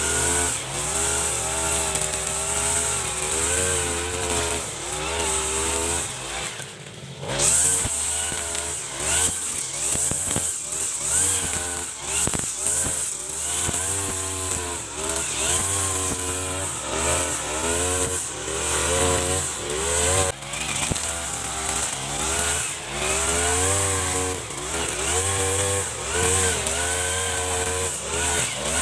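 Backpack brush cutter's small engine running while it cuts grass. Its pitch rises and falls every second or two as the cutting head bites into the grass and frees up again. The engine drops back briefly about seven seconds in.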